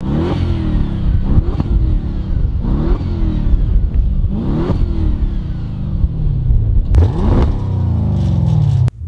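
Audi C7's 4.0-litre twin-turbo V8 through a valved stainless-steel performance exhaust, revved in several quick throttle blips, each climbing sharply and then falling back slowly.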